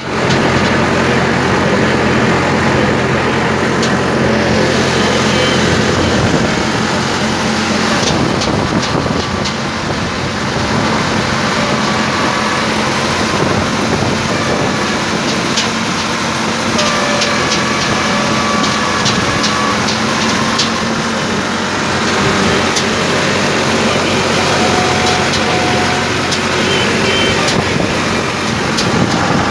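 Tractor engine running steadily while it pulls and powers a PTO-driven Impagri pumpkin seed harvester, with scattered knocks and clatter from the machine now and then.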